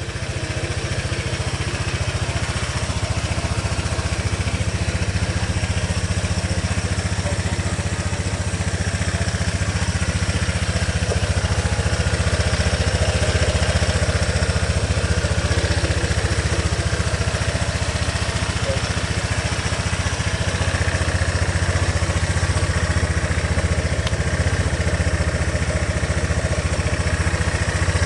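Honda PCX 125 scooter's single-cylinder four-stroke engine idling steadily.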